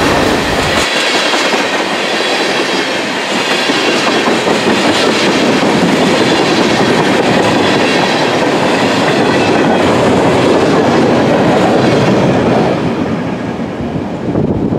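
A mixed freight train's cars (tank car, covered hopper, boxcar) rolling past at close range, their wheels running loudly on the rails. The noise fades away over the last couple of seconds as the end of the train goes by.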